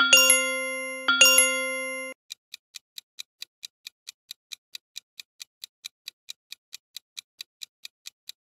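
Quiz sound effects: two ringing chime notes of the same pitch about a second apart, each fading out, then a clock-like countdown timer ticking evenly at about five ticks a second.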